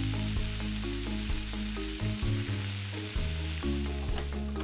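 Meat sizzling in a hot pan as it is stir-fried, a steady hiss, over soft background music with low held notes.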